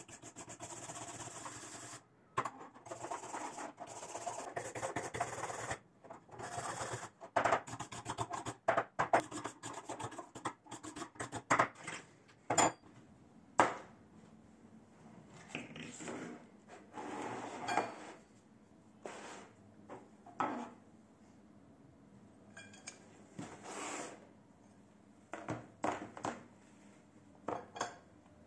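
Hand wire brush scrubbing rust off the steel blade of old tin snips in quick strokes for about the first six seconds, then scattered scrapes, clicks and clinks of the metal parts being handled and set down.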